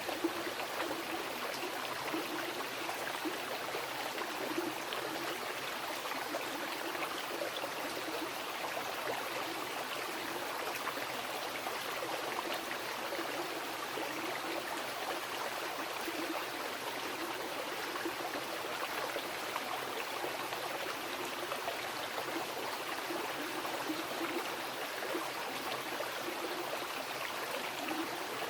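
Mountain river rushing and babbling over rocks, a steady, dense water noise with small splashes flickering through it.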